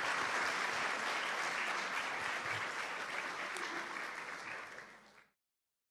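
Audience applauding steadily after a talk, dying down a little after four seconds and then cutting off abruptly about five seconds in.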